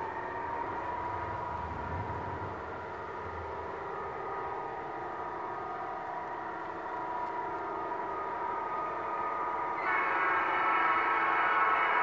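Sound unit of a G-scale model SD40-2 diesel locomotive playing a steady diesel engine drone that grows gradually louder as the train approaches. About ten seconds in, a louder horn starts.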